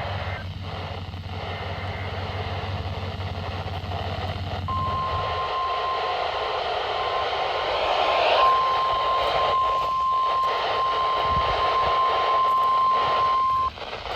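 Weather radio receiver hissing with static, then the NOAA Weather Radio 1050 Hz warning alarm tone: one steady tone starting about five seconds in and holding for about nine seconds, breaking up briefly near its start and cutting off sharply near the end. It is the alert that a new warning is about to be read. A low hum underneath stops about five seconds in.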